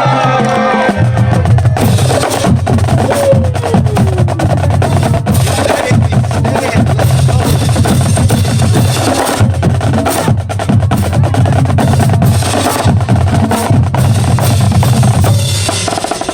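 Marching drumline playing a fast, dense cadence: rapid snare drum strokes over a steady low pulse of bass drums.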